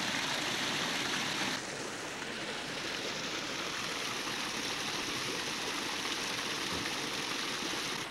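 Stream water running steadily over rocks, with a small cascade pouring into a pool; the sound drops a little and changes tone about a second and a half in.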